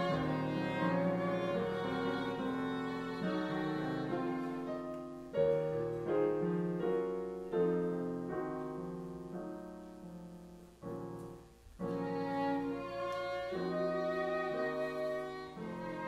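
Violin and flute playing a melody together over piano accompaniment. The music thins out and almost stops for a moment about two-thirds of the way through, then picks up again with a fresh piano entry.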